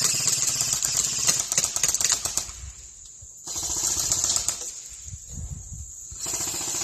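Airsoft gunfire: long runs of rapid clicking shots, broken by two short pauses.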